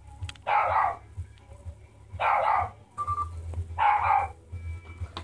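Three loud, harsh barks, evenly spaced about a second and a half apart.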